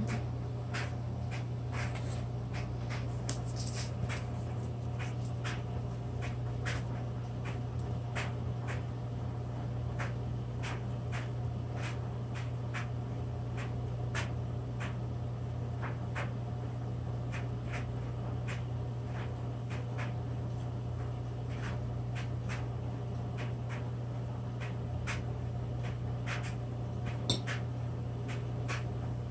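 A steady low hum with scattered faint clicks and scrapes from a spoon spreading icing onto graham crackers, and one slightly sharper click near the end.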